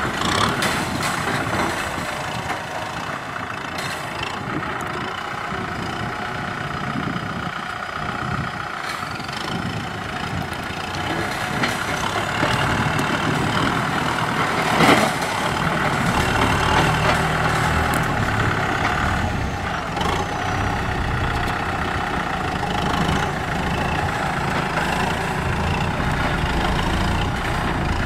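Kubota M6040SU tractor's diesel engine running steadily as its front blade pushes soil, with a brief sharp knock about halfway through. The engine sound grows deeper and slightly louder in the second half.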